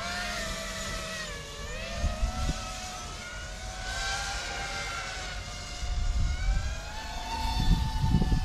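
FPV drone's motors and propellers whining as it flies, the pitch dipping and rising as the throttle changes, over a low rumble that grows in the second half.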